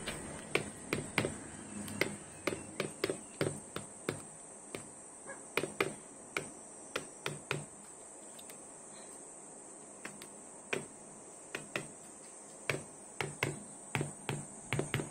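A chukar partridge pecking at a laptop screen: sharp beak taps on the glass, in quick irregular runs of two to several, with a pause of about two seconds a little past the middle.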